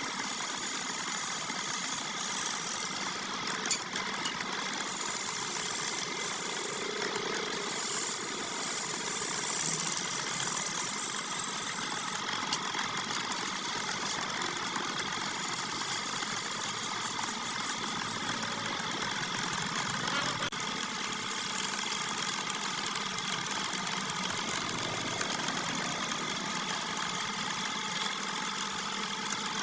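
Wood lathe running steadily with a continuous motor hum, with short bursts of high hiss in the first dozen seconds.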